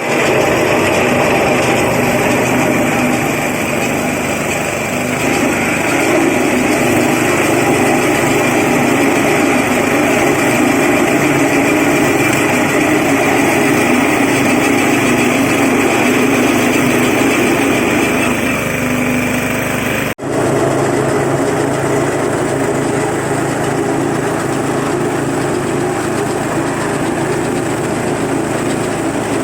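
Stainless disk-mill salt grinding machine running steadily with a loud, even mechanical noise. The sound breaks off for an instant about twenty seconds in and resumes.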